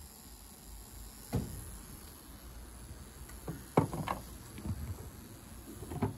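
Hotpoint 1012 spin dryer with its lid opened: a faint low rumble as the drum slows to a stop, then a handful of knocks and clunks as the lid and the damp laundry are handled, the loudest a little past the middle.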